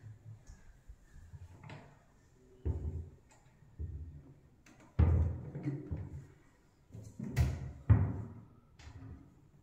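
Modular kitchen base-cabinet doors being swung open and shut by hand, giving a series of dull thuds and knocks at irregular intervals, the loudest about halfway through and two more close together later on.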